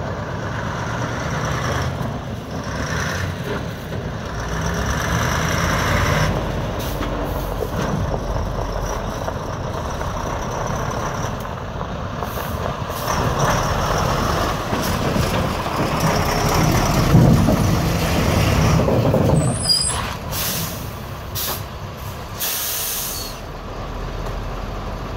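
Air-cooled twin-turbo V8 diesel of an Iveco 260.30 6x6 tipper truck running as the truck drives past, growing louder and then dropping off suddenly about two-thirds of the way in. Several short hisses of air brakes releasing air follow near the end.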